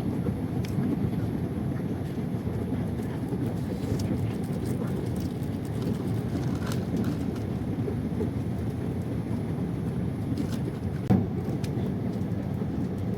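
Steady low rumble of an airliner cabin in flight, with a single small knock about eleven seconds in.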